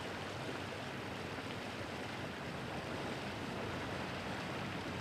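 A boat engine running steadily, with a constant low drone under an even rush of water and wind.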